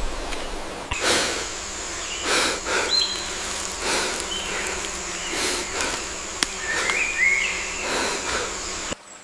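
Rainforest ambience: a steady high-pitched insect drone, a few short bird chirps, and repeated soft rustling noises. The sound changes abruptly about a second in and again near the end.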